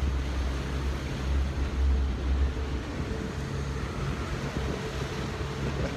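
Outboard motor of a small aluminium skiff running steadily under way, a low even drone over the rush of water.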